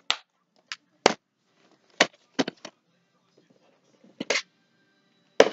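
Several short, sharp plastic clicks and snaps from a DVD case being handled, spread unevenly with short gaps, the loudest near the end.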